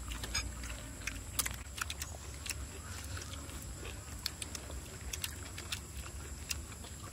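Eating sounds: chewing and mouth smacks with scattered small clicks of fingers picking food from foil and a glass bowl, over a steady low rumble and a faint steady high tone.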